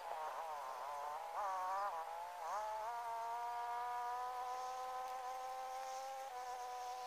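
A flying insect buzzing close by, its pitch wavering for the first few seconds and then holding almost steady.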